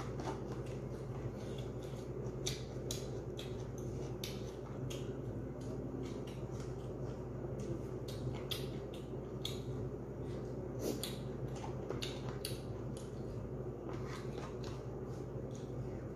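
Eating sounds: chewing and mouth smacks, many short irregular clicks. A steady low hum runs underneath.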